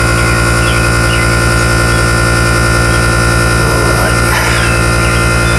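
A steady machine hum with a quickly pulsing low note and a thin steady tone above it, unchanging throughout.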